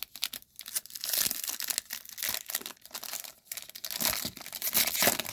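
Plastic wrapper of a pack of baseball trading cards being torn open and crinkled by hand, an irregular crinkling rustle.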